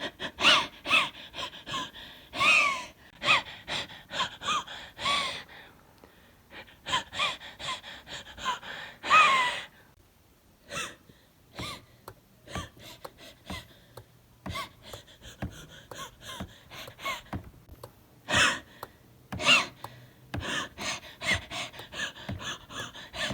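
A person wheezing: quick, squeaky, gasping breaths in bouts, with short pauses between.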